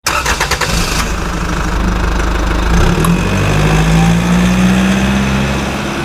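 Engine sound effect of a vehicle starting and running: a clattering first second, then a steady engine note whose low tone rises slightly about three seconds in.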